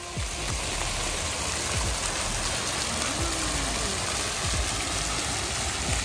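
Fountain with many water jets splashing steadily into its pool.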